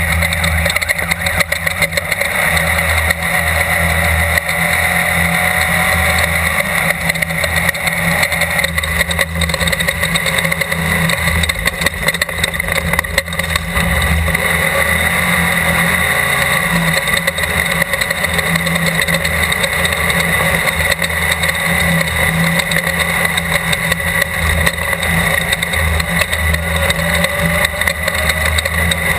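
Class 12 desert off-road race car's engine running hard and continuously at speed, with a constant loud rush of noise over it and no let-up.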